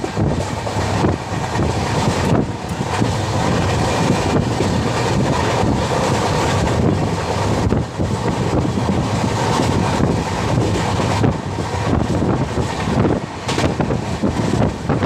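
Express train running along the track: a steady rumble and rush of wheels on rails, with wind buffeting the microphone in uneven gusts.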